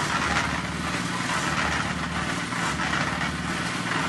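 Cement mixer running steadily while mixing concrete.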